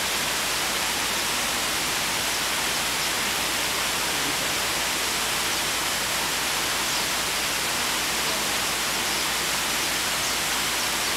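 A steady, even hiss that holds at one level throughout, with no clear bird calls standing out.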